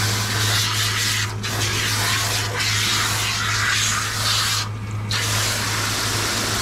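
Handheld shower sprayer hissing as water is sprayed onto a wet dog's coat in a grooming tub, over a steady low hum. The spray cuts out briefly about five seconds in.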